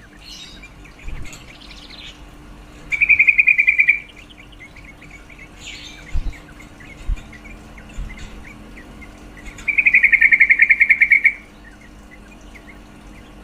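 Female yellow-vented bulbul (trucukan) calling: two loud, rapid chattering trills, the second longer, with softer scattered chirps between. A few brief soft knocks come in the middle.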